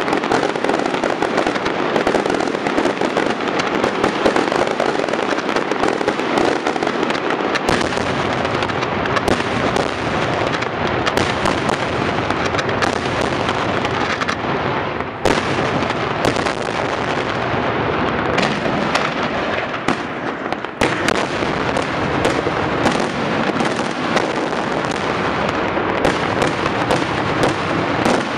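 Daytime fireworks display: an unbroken barrage of bangs and crackling as aerial shells and ground-fired pieces go off in rapid succession, with a momentary lull about halfway through.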